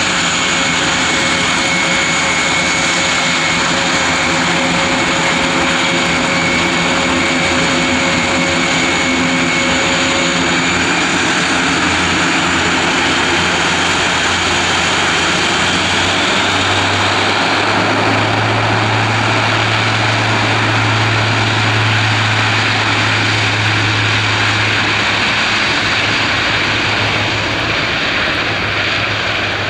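Airbus A400M Atlas's four TP400 turboprop engines and propellers running loud and steady on the ground, with a high whine over the drone. A deep propeller hum swells from about halfway through and eases off near the end.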